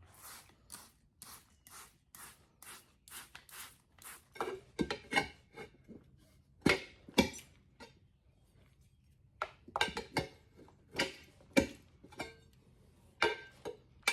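Hand tire-mounting work on a motorcycle wheel. First comes a quick run of short scraping strokes, about two or three a second. Then come sharp metallic clanks and knocks of tools against the rim, several of them loud.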